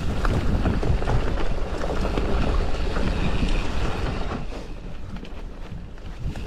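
Sunn Shaman XC S2 mountain bike riding a forest trail: wind buffeting the action camera's microphone, with tyre rumble and the bike's rattles and clicks over the ground. It eases off after about four seconds.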